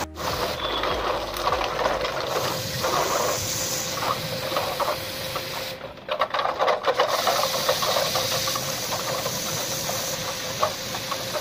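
Water spray hissing against the outdoor condenser unit of a Hitachi split air conditioner as it is washed, with a thin steady tone underneath. The sound dips briefly about six seconds in.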